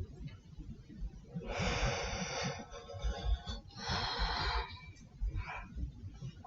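A person's breath: two long, rushing breaths, each about a second long, the second starting about a second after the first ends.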